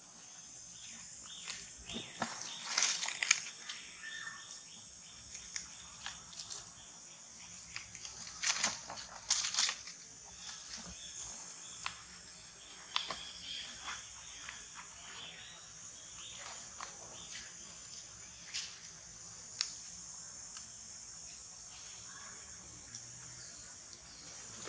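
Insects droning steadily and high, with scattered rustles and scuffs in dry leaves and a few louder noisy bursts about 3 and 9 seconds in.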